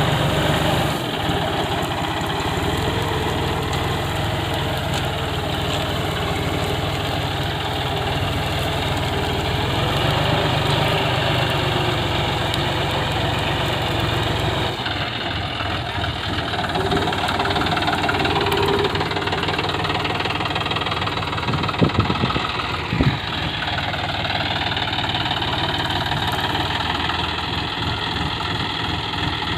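Engine of a ploughing machine running steadily under a working load. Two short sharp knocks sound about a second apart a little past two-thirds of the way through.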